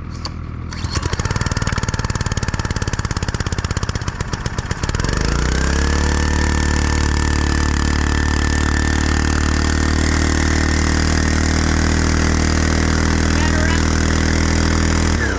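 An engine turning over in fast, even pulses for about four seconds, then catching about five seconds in and running steadily. Its revs dip briefly near the end.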